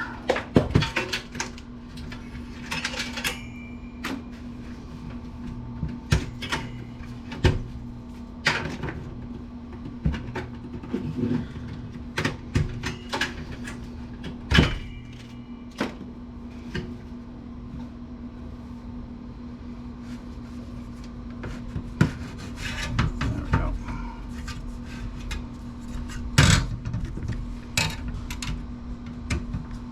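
Irregular clicks, clunks and knocks of metal parts and screws being handled as a desktop PC case is taken apart, over a steady low hum.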